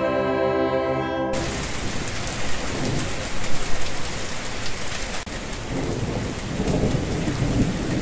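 A military wind band's held final chord, brass and clarinets, cuts off abruptly just over a second in. Heavy rain pours after it, with a low rumble of thunder swelling near the end.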